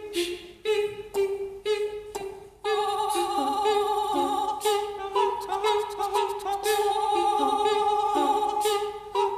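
Layered a cappella voices singing an instrumental soundtrack tune. Short separate notes come first, then from about three seconds in several voice parts hold sustained harmony under a higher melody.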